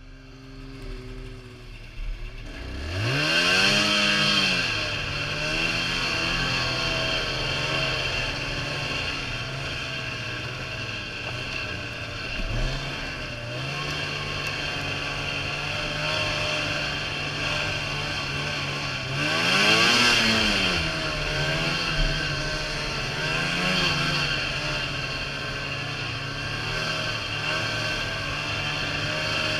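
Arctic Cat Z570 snowmobile's two-stroke engine, quiet at first, then revving up about three seconds in and running steadily under way. It revs up and eases off again about twenty seconds in, with a smaller rev a few seconds later.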